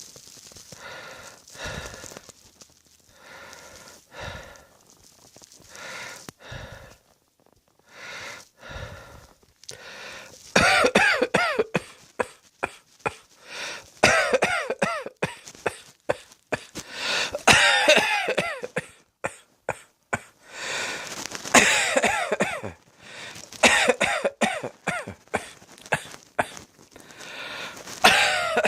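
A person coughing in repeated fits, with pitched, wheezing breaths between them. The first ten seconds hold softer wheezy breaths and light coughs; from about ten seconds in come loud, rapid coughing fits that run on to the end.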